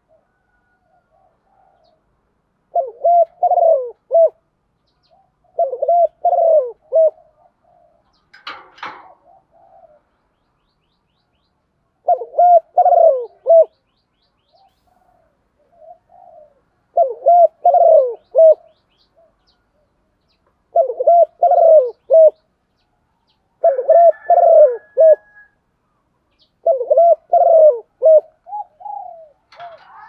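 Hen spotted dove cooing: seven phrases of repeated low coos, each about a second and a half long, coming every three to four seconds, with a longer pause in the first half. A brief scuffling noise comes about nine seconds in.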